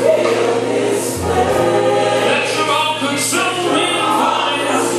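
Gospel worship music: a choir singing over a sustained accompaniment with a steady low bass note.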